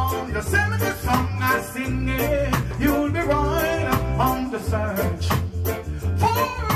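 Live reggae performance: a male vocalist sings a love song into a microphone over electric bass guitar and a steady beat.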